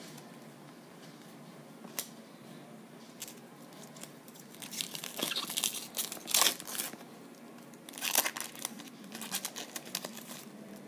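Wrapper of a baseball card pack being torn open and crinkled, in several bursts of tearing and rustling, after a single light click about two seconds in.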